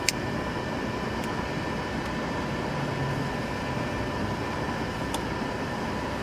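Steady motor hum with faint, even high tones running through it, and a sharp click right at the start.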